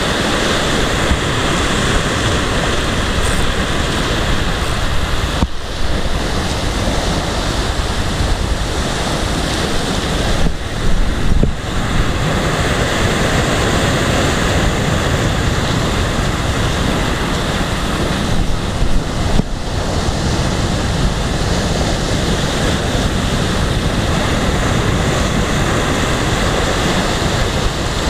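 Sea surf breaking and washing against shoreline rocks in a steady rush, with wind buffeting the microphone.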